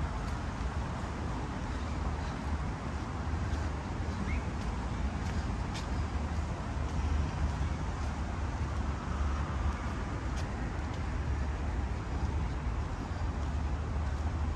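Steady city background noise with a low rumble, like road traffic, and a few faint clicks.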